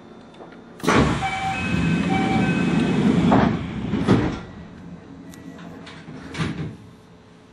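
A Kintetsu commuter train's sliding passenger doors closing: a loud rush of door-mechanism noise for about two and a half seconds, with two short beeps over it. The doors then shut with a thud about four seconds in, and a fainter knock follows a couple of seconds later.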